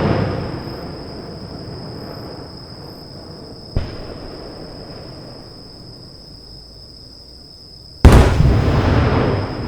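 Fireworks shells bursting. The rumbling tail of one burst fades out, a smaller sharp bang comes about four seconds in, and a loud bang near the end is followed by a long rumble.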